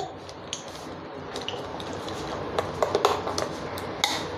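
A spoon stirring thick gram-flour (besan) batter in a glass bowl, mixing in baking soda: a steady wet mixing sound with scattered light clicks.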